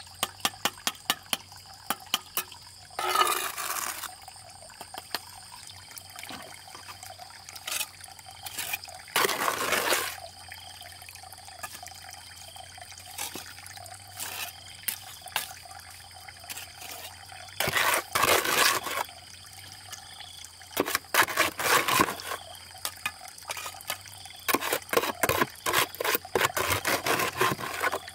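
Bricklaying with a steel trowel: many sharp taps of the trowel on brick, and several scrapes of about a second each as wet cement mortar is scooped from a plastic bucket and spread.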